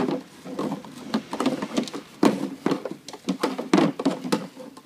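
Nylon rope being pulled through the holes of a plastic baby swing seat, rubbing, with irregular clicks and knocks from the plastic parts as they are drawn together.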